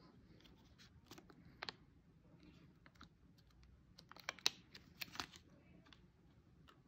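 Small packaging pouch handled and opened by hand: faint, scattered crinkles and clicks, a few about a second in and a busier cluster from about four to five seconds in as the ring is taken out.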